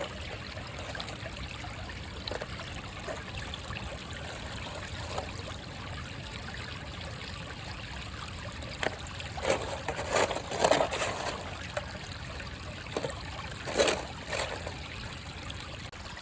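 Small creek trickling steadily over rocks, with a few short scrapes and knocks about ten and fourteen seconds in.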